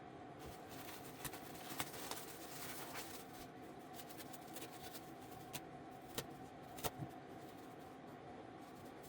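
Faint steady hum with one constant tone, under scattered light clicks and taps, the loudest a pair near the seven-second mark.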